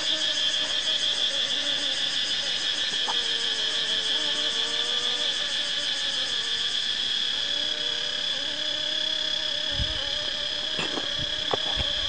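Steady high-pitched chorus of chirring insects, with a few faint knocks and clicks near the end as a knife works the wax cappings off a honeycomb frame.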